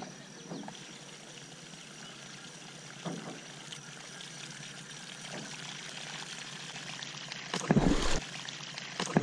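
Topwater lure gurgling and popping across calm water as it is retrieved, then about eight seconds in a loud, deep splash as a giant snakehead strikes it, and a second splash a second later.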